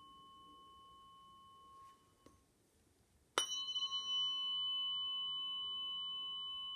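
Tuning fork used for Biofield Tuning: a fading pure ring is damped about two seconds in. About a second later the fork is struck again with a sharp attack and rings on steadily.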